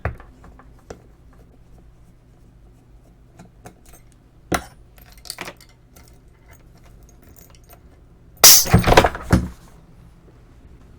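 Light clicks and knocks of parts being handled, then about eight and a half seconds in a sudden loud rush of compressed air escaping for about a second, as a fitting on the Eppendorf Transjector's pressurised air reservoir is undone and its stored pressure is released.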